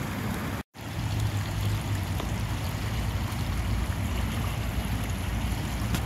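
Steady rushing noise with a low hum and rumble, cut by a brief dropout to silence under a second in.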